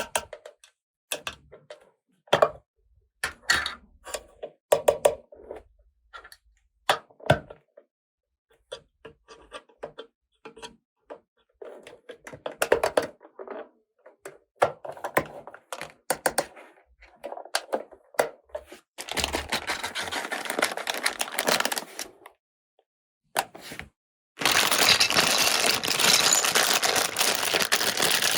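Small plastic toy pieces being handled, with a run of sharp clicks and taps, followed by stretches of continuous rustling noise near the end, the last one louder.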